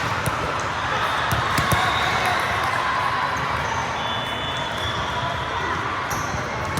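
Volleyballs bouncing and being hit on a hard court, sharp scattered knocks over a continuous hubbub of voices.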